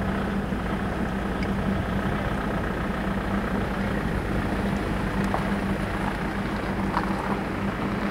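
Engine running steadily: a constant low hum over an even rumble.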